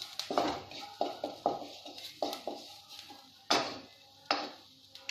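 Wooden spatula scraping and knocking against a nonstick kadhai while stirring frying onions and spices, a run of short strokes with two sharper, louder knocks about three and a half and four seconds in.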